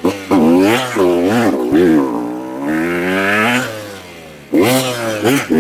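Husqvarna TC125 two-stroke motocross engine revving up and down in short bursts as the rider works the throttle, dropping back briefly near the end before picking up sharply again.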